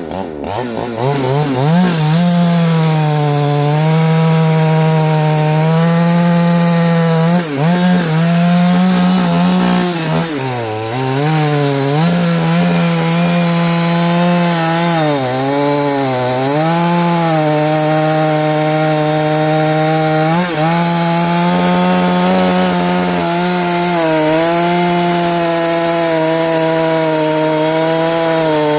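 Two-stroke chainsaw fitted with a tungsten-carbide chain, running at high revs while cutting through a large log. It revs up at the start, then the engine note dips several times as the chain bogs down in the cut and recovers each time.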